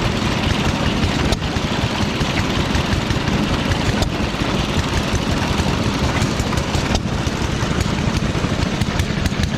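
An engine running steadily at an even idle, with a fast regular beat.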